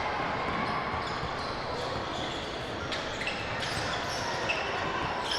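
Basketball game sounds on a hardwood court: a ball bouncing and short high sneaker squeaks, over a steady background of crowd noise.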